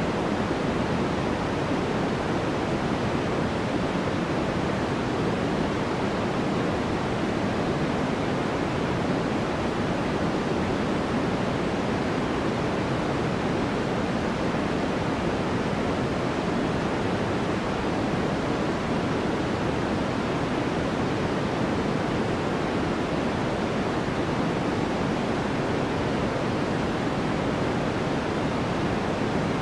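Steady, electronically generated noise: an even, unbroken hiss that is fuller in the low-middle range than in the treble and does not change.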